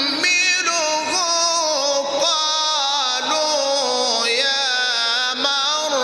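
A man's voice chanting Quranic recitation in the melodic Egyptian tajweed style, drawing long ornamented phrases with bending pitch into a microphone.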